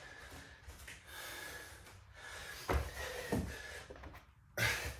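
A man breathing hard mid-way through a set of burpees, with a dull thud about two and a half seconds in as he drops to the floor, and a lighter knock shortly after.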